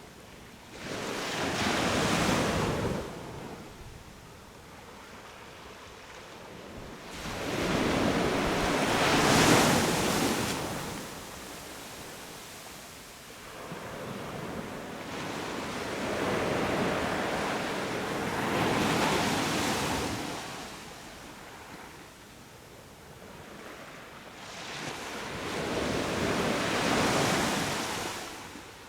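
Sea waves breaking on a sandy beach and washing up the shore, four surges in turn with quieter lulls between them.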